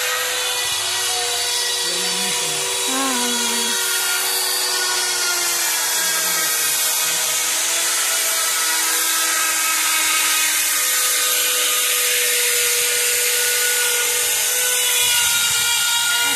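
Handheld electric power tool running continuously on stone in a sculpture workshop: a steady high whine over a hissing grind, its pitch wavering slightly as the tool is worked.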